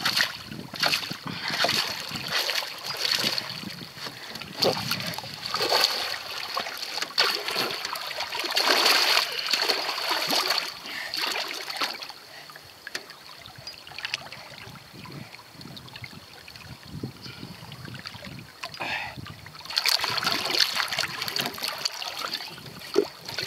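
A hooked redtail catfish thrashing at the river's surface, making irregular splashes and churning water. The splashing eases for several seconds past the middle, then picks up hard again near the end.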